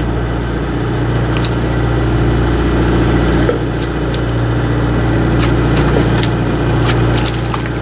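A boat's engine running steadily, a low drone with several fixed tones, with a few short clicks over it.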